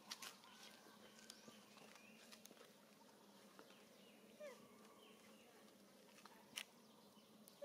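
Near silence: faint outdoor ambience with scattered short chirps and squeaks and a few soft clicks.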